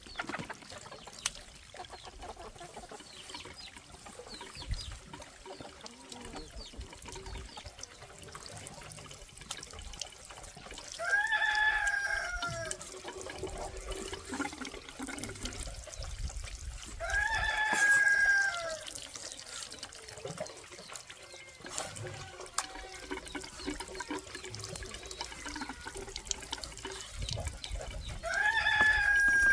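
A rooster crowing three times, about six and eleven seconds apart, each crow about a second and a half long and dropping in pitch at the end. Between the crows, water trickles faintly and there are small clicks.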